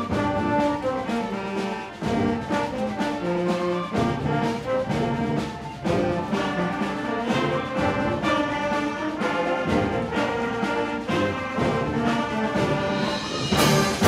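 Concert band playing a busy, rhythmic passage with the brass to the fore, with a sudden loud crash near the end.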